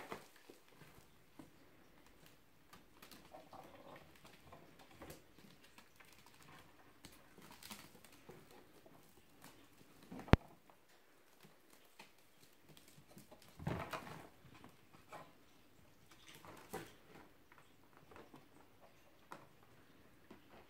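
Kittens scrambling in and around a wicker basket on a tiled floor: light pattering of paws and claws with scattered rustles and taps. A single sharp click about ten seconds in, and a brief louder scuffle a few seconds later.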